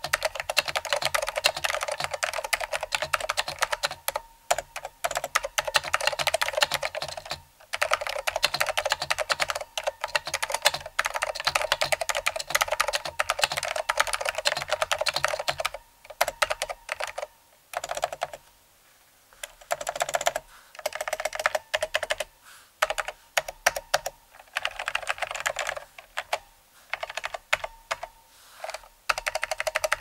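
Fast typing on a Zenith ZKB-150 keyboard with smooth, linear green Alps switches, each keystroke a sharp clack. The board's built-in solenoid-like speaker gives audio feedback with every keypress. The typing runs dense and steady for the first half, then breaks into shorter bursts with pauses.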